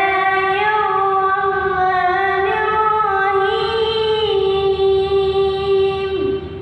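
A child's voice chanting Quran recitation in the melodic tilawah style, drawing out one long note with small ornamental turns. The note falls and breaks off near the end.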